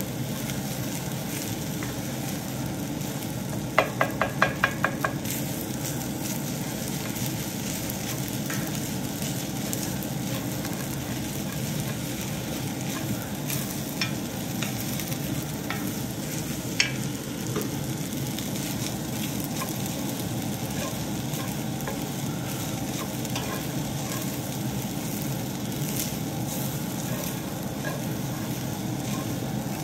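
Fried rice with shredded cabbage sizzling steadily in a hot cast-iron skillet while a wooden spatula stirs and scrapes it. About four seconds in comes a quick run of about six ringing taps.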